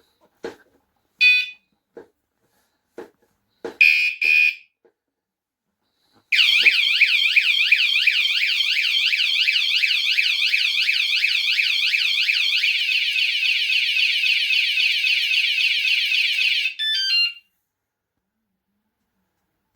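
Cruxer wireless vibration bike alarm being set off: a few light knocks and two short warning beeps, then about ten seconds of loud warbling siren that switches to a faster warble partway through. It ends in a few quick beeps stepping down in pitch.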